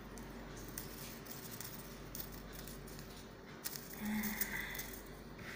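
Faint rustling and crinkling of paper strips being handled and threaded into a paper chain, with a few soft ticks and a short, slightly louder muffled sound about four seconds in.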